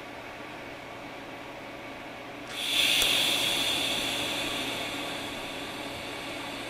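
TIG welding arc at about 35 amps on sheet-steel truck roof panel, struck about two and a half seconds in: a sudden steady hiss, loudest at the strike and easing off as the weld goes on, over a steady background hum.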